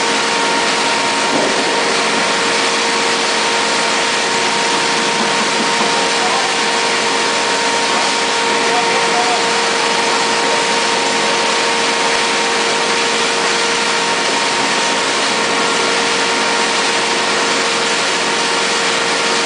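Turmeric grinding mill (pulverizer system) running at full speed, a loud, even machine rush with a steady whine under it that does not change.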